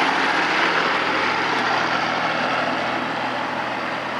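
Small vintage tractor's engine running steadily as it pulls away towing a two-axle horse trailer, the sound slowly fading.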